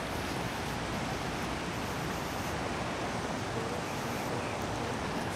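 Steady wind blowing across the microphone: an even hiss with a low rumble underneath.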